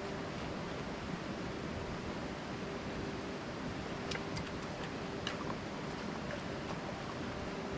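Steady rushing of a mountain creek's flowing water, with a few short faint high clicks about four to five seconds in.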